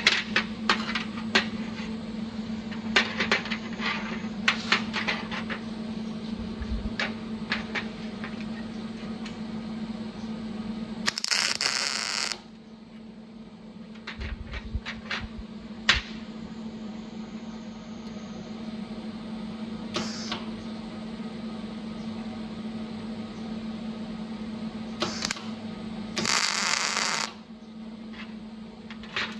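Clicks and clanks of a metal welding earth clamp and a steel bolt being handled, then a MIG welder's arc crackling in short bursts while welding the bolt: a weld of about a second around eleven seconds in, brief tacks near twenty and twenty-five seconds, and another second-long weld near the end. A steady low hum runs underneath.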